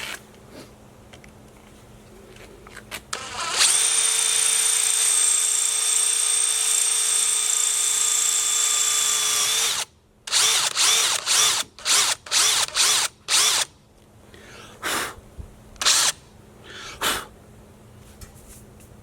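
Power drill running at a steady speed for about six seconds, then stopping and giving a quick string of short trigger bursts, followed by three more spaced bursts.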